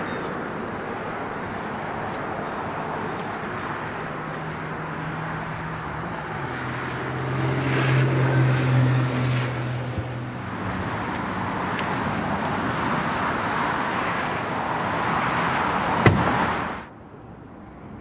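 Outdoor road traffic noise, with a vehicle's engine hum swelling louder as it passes about seven to ten seconds in. A single sharp click comes near the end, and then the sound cuts off suddenly.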